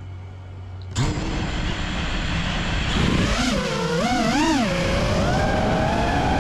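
FPV freestyle quadcopter's brushless motors spinning up suddenly for takeoff about a second in. The motors then whine, the pitch rising and falling quickly as the throttle is worked during low, fast flight.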